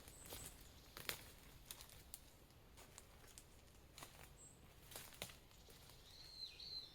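Faint, scattered clicks and rustles, with a short high bird call that dips in pitch near the end.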